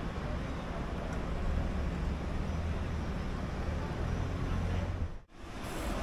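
Busy city street traffic: a steady low rumble of passing cars and buses, which cuts out abruptly for an instant about five seconds in.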